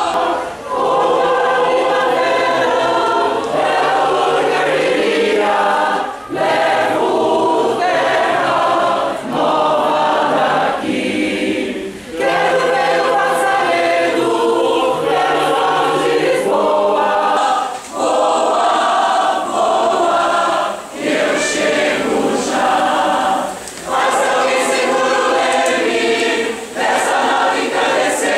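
Mixed choir of men's and women's voices singing together, in long phrases with brief breaks every few seconds.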